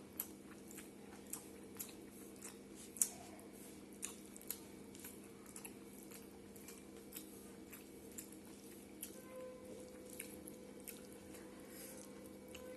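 A person eating close to the microphone: irregular chewing and wet mouth clicks, the sharpest about three seconds in, over a steady low hum.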